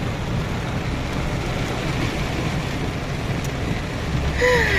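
A car's cabin as it drives slowly along a waterlogged dirt road, with a steady low rumble of engine and tyres. Near the end there is a brief falling pitched squeal.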